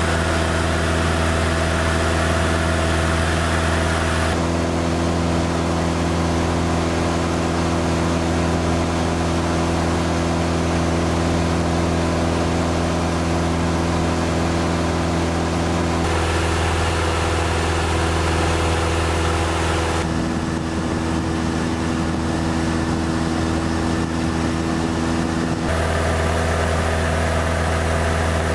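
Cessna 172 floatplane's piston engine and propeller droning steadily in cruise, heard from inside the cabin. The tone of the drone changes abruptly a few times.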